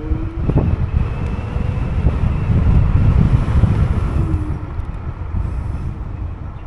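Wind rushing over the microphone of a moving electric scooter, with road rumble underneath. It swells to its loudest about halfway through and eases off toward the end.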